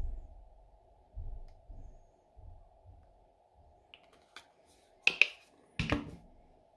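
Soft low plops of thick clear gel pouring into a bare palm, then small clicks and, about five and six seconds in, two loud sharp clicks and a knock from plastic product containers being handled. A faint steady hum sits underneath.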